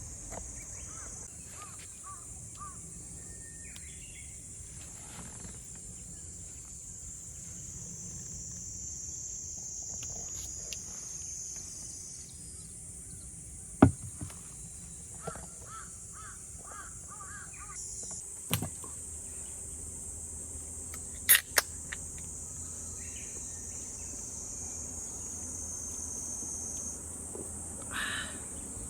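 Outdoor ambience: a steady high-pitched insect chorus throughout, with short runs of bird calls near the start and in the middle, and a few sharp clicks or pops, two of them close together about two-thirds of the way in.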